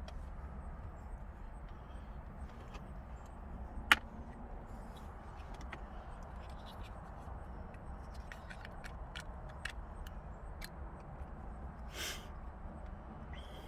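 Scattered clicks and small knocks of parts being handled inside a car, over a steady low hum. There is one sharp click about four seconds in, a run of light ticks later on, and a brief rustle near the end.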